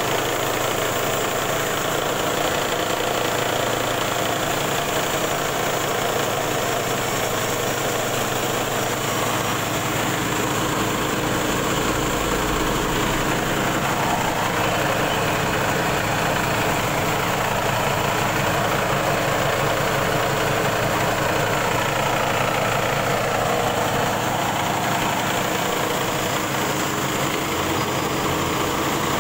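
Mini rice huller running steadily, hulling and milling paddy straight into white rice in a single pass.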